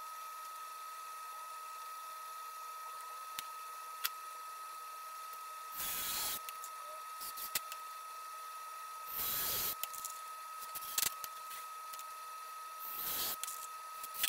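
Ryobi cordless drill running in three short bursts, each about half a second, as screws are driven into the corner of a glued and clamped plywood drawer box. A few light clicks fall between the bursts.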